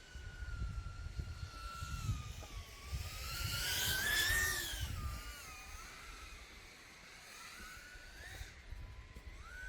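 FPV race quadcopter's 1606 brushless motors and 3.5-inch props on a 6S battery, a high buzzing whine that shifts in pitch with throttle. About three seconds in it rises in pitch and grows louder, peaking around four seconds, then eases back down.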